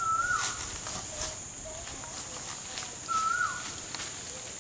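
Forest bird calling: a short whistled note, held level and then sliding down, given twice about three seconds apart, with a few fainter lower notes between, over a steady high-pitched insect drone and scattered soft clicks.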